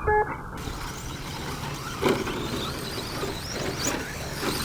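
Electric 13.5-turn motors of 2WD short course RC trucks whining as they speed up and slow down around the track, with a short electronic beep right at the start.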